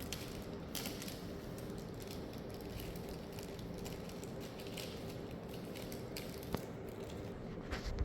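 Scattered small clicks and scrapes of hand work on an opened all-in-one computer's internals: tools and parts being handled, with a faint steady hum underneath.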